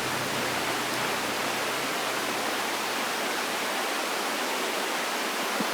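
Steady, even rushing hiss with no tone or pitch in it.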